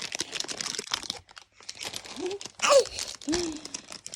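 Plastic packaging crinkling and tearing as a toy package is pulled open, with three short voiced exclamations partway through.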